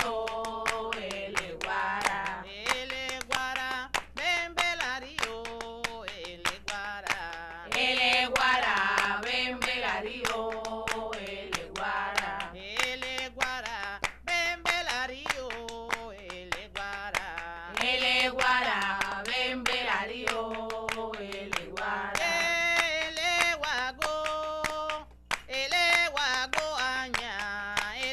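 A voice singing a chant in repeated phrases with short breaks between them, over a steady rhythm of percussive strikes.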